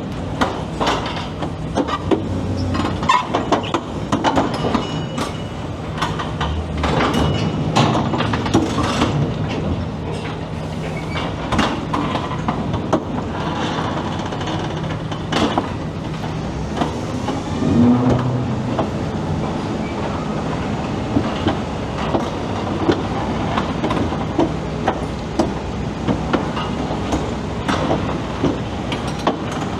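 A drilling rig's steel base being pulled sideways across a mat greased with dish soap, under a steady low engine hum. Irregular metal clanks, knocks and squeals come throughout.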